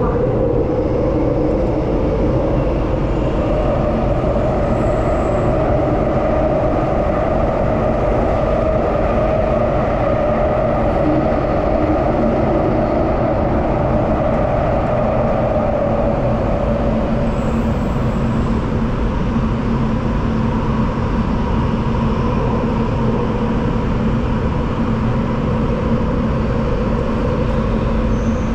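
Singapore MRT Downtown Line train running through a tunnel, heard inside the carriage: a steady, loud rumble of wheels and running gear. A mid-pitched drone fades a little past halfway, and a lower steady hum comes in for the last third.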